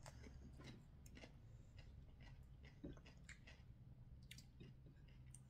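Faint chewing with scattered soft mouth clicks and ticks, over a low steady hum.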